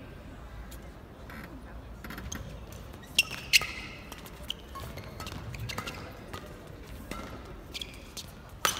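Badminton rally: sharp racket-on-shuttlecock hits and shoe squeaks on the court floor, with the loudest pair of hits a little over three seconds in and another near the end.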